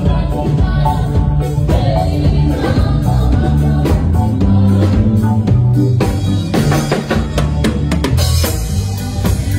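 Live band music: electric bass playing a steady bass line over a drum kit with bass drum and snare. The drumming gets busier in the second half, with a cymbal crash near the end.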